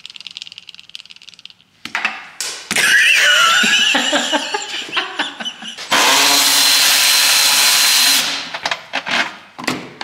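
Fast ratchet clicking, then clattering and squeaky scraping of intake parts being handled. From about six seconds in, a power tool, likely a cordless ratchet, whirs steadily for about two seconds while loosening a fastener on the air intake, followed by a few knocks.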